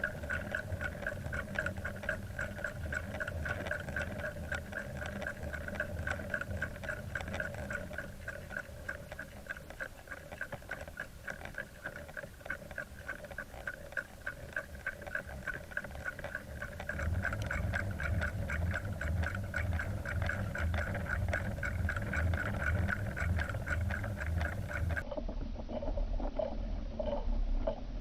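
Boat motor running steadily at trolling speed: a low hum under a held whine with a fast, even ticking, the low hum growing louder a little past halfway.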